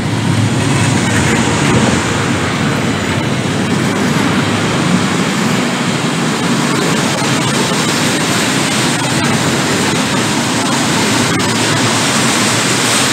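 Freight train of double-deck car-carrier wagons running past behind an FS E.652 electric locomotive: a steady, loud rush of wheels on rail and moving air, with a few faint clicks.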